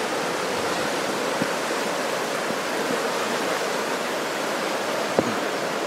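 Steady rush of flowing river water, with a sharp knock about five seconds in.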